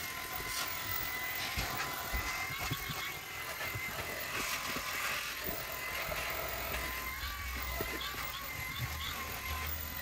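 AEG Ultimate 8000 cordless vacuum's handheld unit running steadily, with a high, slightly wavering motor whine over the rush of suction, as its nozzle works over carpet.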